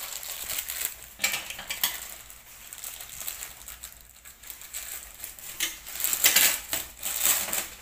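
Scissors snipping at a plastic courier pouch in short clicks, then the plastic crinkling and rustling in louder bursts near the end as the pouch is pulled open by hand.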